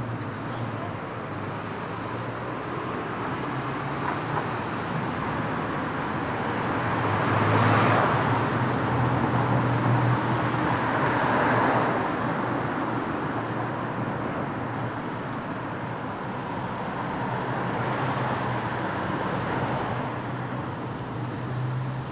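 Street traffic: cars passing, loudest about eight and twelve seconds in and again later on, over a steady low engine hum.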